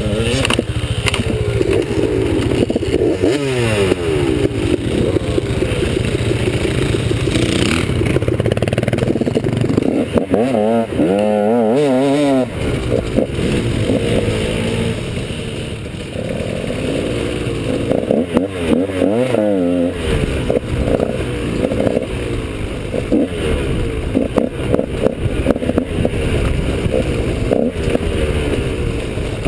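KTM 150 XC's single-cylinder two-stroke dirt bike engine under way, revved hard and let off again and again, its pitch climbing and dropping repeatedly as the rider works the throttle and gears over rough ground.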